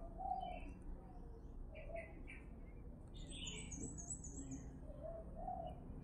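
Newly hatched quail chicks peeping: scattered short chirps, with a quick run of very high peeps in the middle, over a low steady hum.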